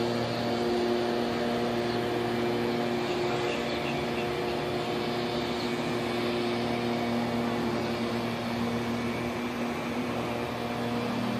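Steady mechanical hum with a constant low drone, unchanging in pitch and level.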